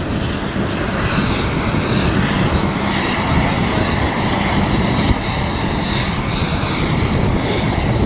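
An aircraft engine running, a steady rushing noise with a faint high whine over it.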